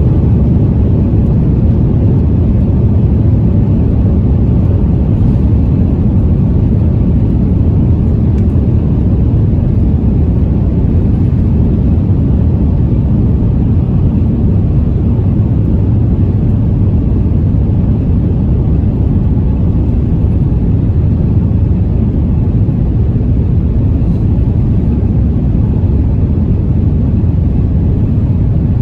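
Airliner cabin noise: the jet engines and airflow heard from inside the cabin as a loud, steady low rumble.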